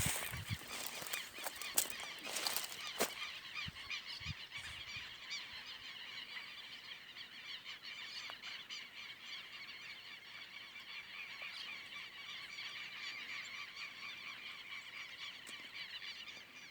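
A flock of southern lapwings (quero-quero) calling, many harsh, rapid calls overlapping in a continuous chatter. A few sharp knocks sound in the first three seconds.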